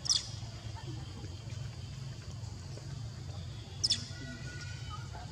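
Two brief high-pitched chirps, each falling in pitch, one at the start and one about four seconds in, over a steady low rumble.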